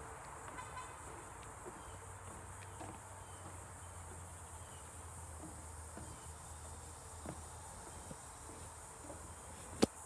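Insects buzzing steadily at a high pitch in wooded wetland, with soft, irregular knocks of footsteps on a wooden boardwalk and one sharp click near the end.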